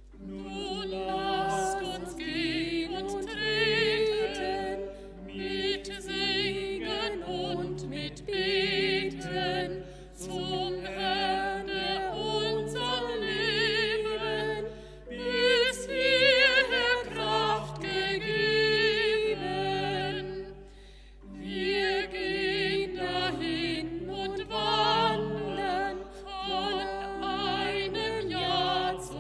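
A small vocal ensemble, a woman and three men, singing in parts with vibrato on long held notes. The phrases are broken by short pauses.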